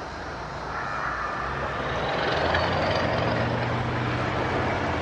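Federal Signal DSA electronic outdoor warning sirens sounding a weekly test tone over a low, steady industrial rumble, swelling louder about two seconds in.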